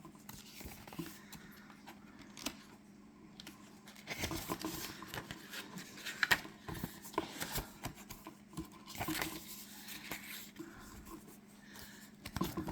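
Paper being handled up close: rustling and crinkling with scattered light clicks and taps, busiest in the middle.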